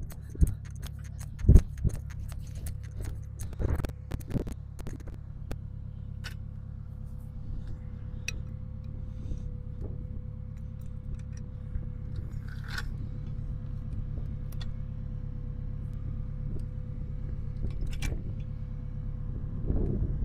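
A car engine idling steadily, with sharp metallic clinks and clanks of tools and parts being handled over it, the loudest in the first few seconds.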